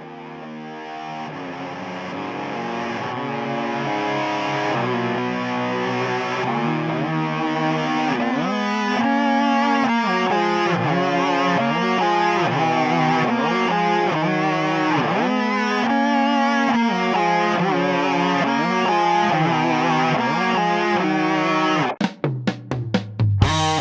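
Instrumental rock band playing: distorted electric guitar lines with sliding notes over drums, swelling up from quiet over the first few seconds. Near the end the music changes to a run of sharp, stop-start drum hits.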